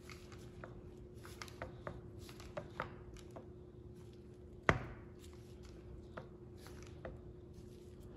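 Light metallic clicks and taps from the pistons and crank of a Copeland Discus semi-hermetic compressor being worked by hand and with a screwdriver, with one sharper knock a little past halfway. The looseness comes from a damaged wrist pin that lets the piston drop.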